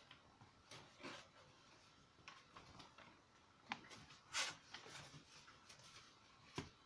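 Faint rustling and light tapping of a cardboard folder of coloured paper being closed and stood up against other card sheets on a desk, with a louder brief rustle about halfway through and a sharp knock near the end.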